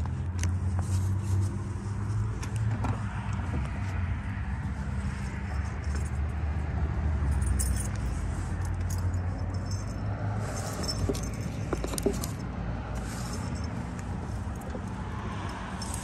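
Steady low engine hum, as of the Toyota Coaster's 4.2 L six-cylinder turbo diesel idling, stronger in the first half. Light jingling and clicking sit on top of it.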